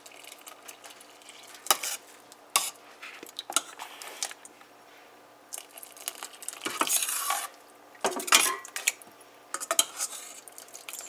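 Water poured into a stainless steel pot of thick split-pea dal while a metal spoon stirs it, the spoon clinking sharply against the pot several times between stretches of splashing and sloshing. The water is thinning dal that has cooked down too thick.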